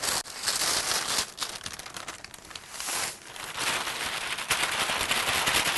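A sheet of paper crinkling as it is folded and tipped, with a dry powder of icing sugar and ground almonds sliding off it into a stainless steel mixing bowl.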